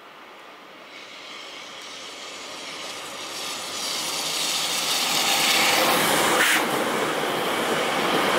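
Z50000 Francilien electric train approaching and passing close by, its running rumble and hiss growing steadily louder, with a brief clack about six and a half seconds in.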